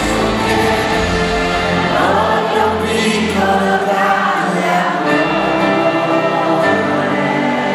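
A live band playing a pop ballad, with a man singing into a handheld microphone.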